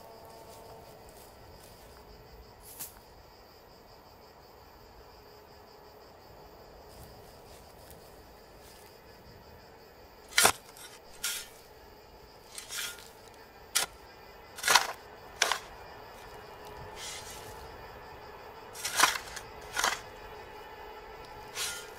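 Gunshots in a western gunfight: about ten sharp, irregularly spaced bangs starting about halfway through, over a faint steady high hum.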